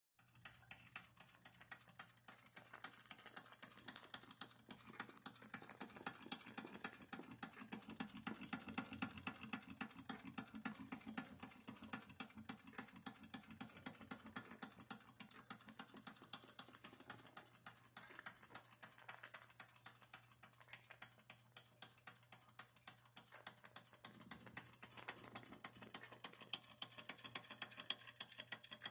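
Modified Wilesco D11 live steam engine running, a rapid, even stream of light mechanical ticks from the engine and its reduction gearing driving a model pump jack, over a steady low hum.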